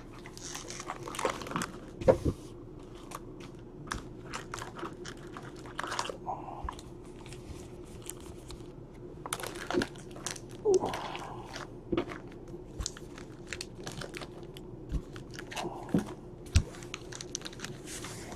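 Foil-wrapped Panini Donruss baseball card packs crinkling and clicking as they are handled, shuffled and stacked into piles, in irregular bursts with short pauses between.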